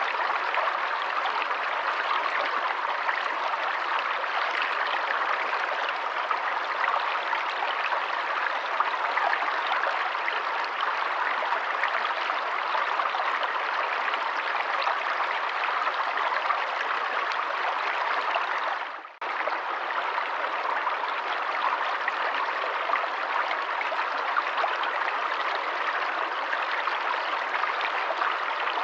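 Running water of a forest stream, a steady even rush and babble. It dips out for a moment about two-thirds of the way through, then comes straight back.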